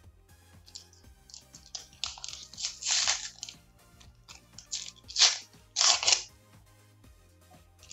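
Packaging being crinkled and torn open by hand in several short bursts, the loudest about five and six seconds in, over quiet background music.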